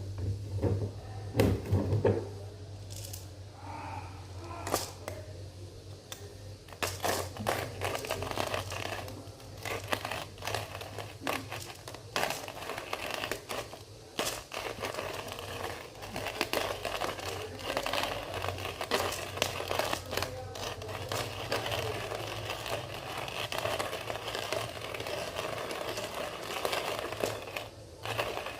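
Coffee grinder crunching whole beans for a V60 pour-over: scattered clicks at first, then from about seven seconds in a dense, continuous crackling crunch as the beans are ground.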